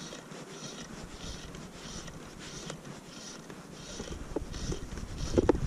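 Fly line being stripped in by hand through the rod guides, a soft rhythmic swish about two or three times a second. Wind rumbles on the microphone, growing from about four seconds in.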